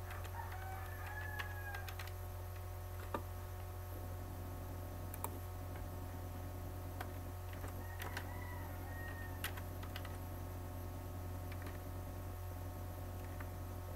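Computer keyboard keystrokes, scattered single clicks, as month names are typed, over a steady low hum.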